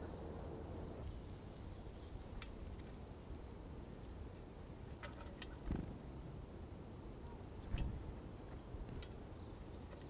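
Outdoor ambience: a low steady rumble with faint, high bird chirps in the background and a few sharp ticks, plus two soft thumps, one about six seconds in and a louder one just before eight seconds.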